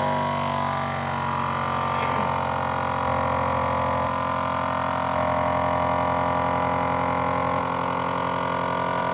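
Countertop vacuum sealer's pump running in canister mode, drawing the air out of a mason jar through a jar-sealer lid attachment: a loud, steady motor hum that switches on abruptly.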